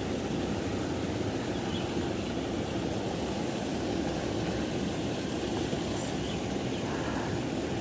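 Steady rushing of a river's flowing water, an even noise that does not change.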